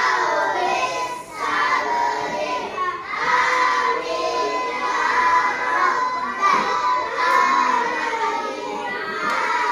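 A class of children singing together, many young voices at once, some of them shouting.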